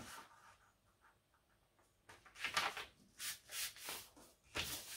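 A sheet of paper being pressed and creased flat by hand on a wooden table: a few short rustling, rubbing strokes starting about two seconds in.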